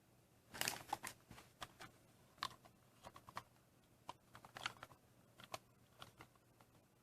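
Small plastic parts handled, with irregular clicks and short rattles, the loudest cluster about half a second in.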